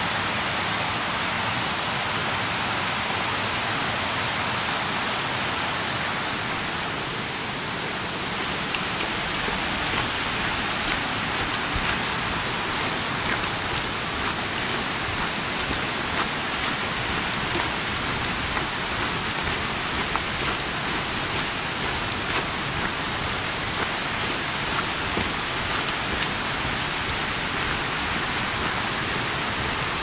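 Steady rushing of a mountain stream running over rocks in the gorge below, with light footsteps on a dirt trail from about nine seconds in.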